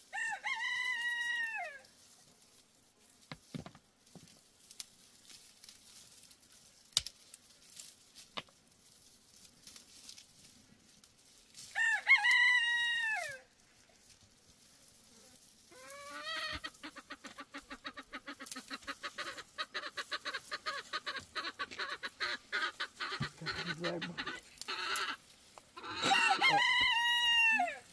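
A rooster crowing three times, about twelve seconds apart, each crow a second and a half long, rising and then falling away. Between the second and third crows comes a long run of fast, even clucking pulses lasting about eight seconds.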